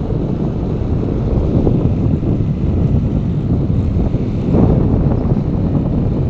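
Wind buffeting the microphone of a moving open vehicle, a steady low rumble that swells briefly about four and a half seconds in.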